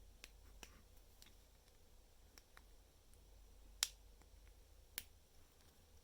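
Faint clicks of Lego Technic plastic pieces being handled and pushed into place, with a sharper click past the middle and another about a second later.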